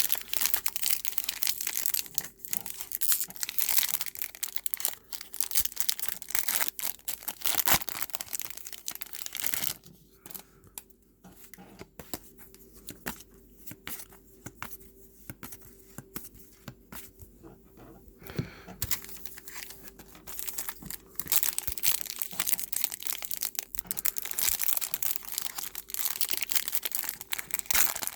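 Foil trading-card pack wrappers being torn and crinkled by hand, a dense crackling. Partway through it lets up for several seconds into sparse quiet rustles and clicks, then the crackling returns.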